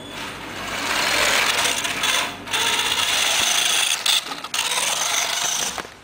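Small RC car's electric drive motor and gears whirring as it drives on a hard floor, cutting out briefly twice.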